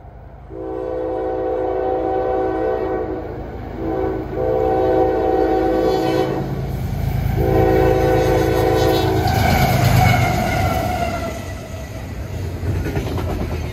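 Diesel locomotive air horn on an approaching CSX intermodal train sounding three long blasts. The lead GE locomotives then pass with a loud engine rumble, the horn and engine tones dropping in pitch as they go by, followed by the steady rumble of the double-stack container cars rolling past.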